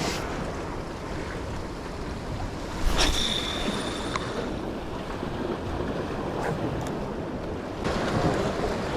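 Ocean surf washing steadily, with wind buffeting the microphone. About three seconds in there is one sharp click followed by a brief high ringing tone.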